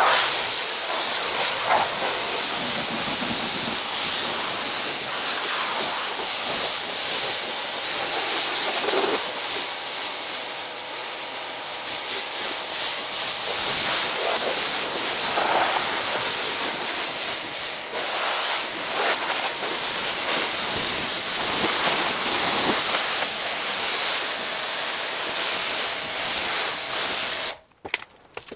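High-pressure water jet from a Kranzle 1152TST pressure washer spraying steadily onto a car's wheel and bodywork, rinsing off foam with a loud hiss. The spray cuts off suddenly near the end.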